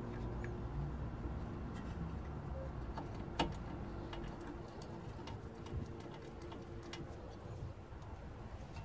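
Hands working a brake caliper and tools: scattered light clicks and handling noise, with one sharper click about three and a half seconds in.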